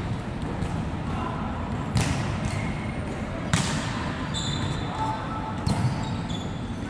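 A volleyball being struck by players' hands and forearms: three sharp hits about a second and a half apart, echoing in a large hall.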